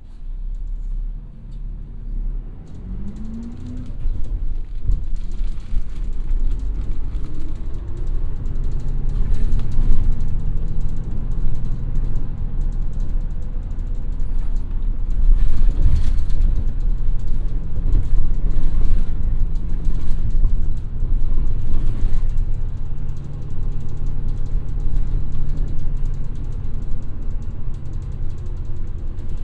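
City bus running, heard from inside the passenger cabin: a steady low engine and road rumble with a whine that rises in pitch about three seconds in, over the clicks, rattles and creaks of the bus interior.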